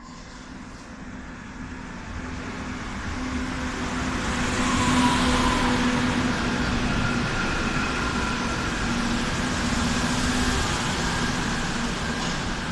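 Madrid Metro Line 5 train emerging from the tunnel and pulling into the station. It grows steadily louder as it approaches, then keeps running along the platform as it slows, with steady whining tones over the rumble.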